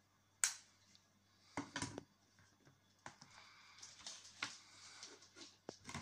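Small plastic things handled by hand: a sharp click about half a second in, a few knocks around two seconds, then a run of light taps and rustling as items are picked up and moved about.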